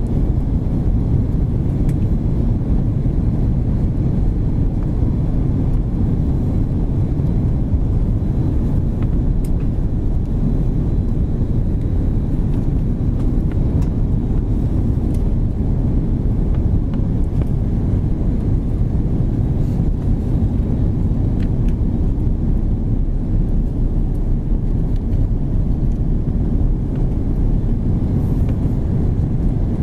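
Steady low rumble inside the cabin of an Airbus A330-200 airliner on approach: engine and airflow noise, with a faint high tone above it.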